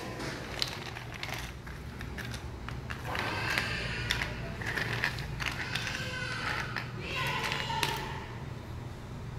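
Dried sea cucumbers clicking and clattering against one another and the hard tabletop as a hand picks through the pile, a string of short dry knocks.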